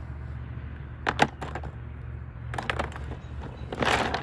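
Short plastic clicks and clatter of hands rummaging through a makeup case, then a denser rustle of handling near the end, over a steady low hum.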